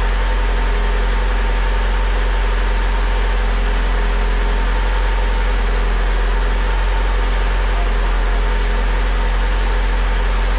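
Freshly built, turbocharged Honda D16Y8 four-cylinder engine idling steadily, with no change in speed.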